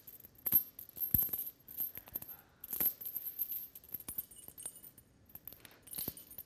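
Light metal chain clinking and rattling as it is unwound from a person's wrists, with irregular sharp clinks.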